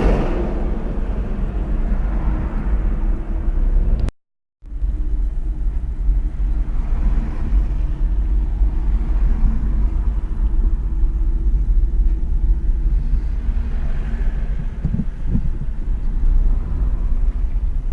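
Steady low rumble of road and engine noise from a moving car. It cuts out briefly about four seconds in.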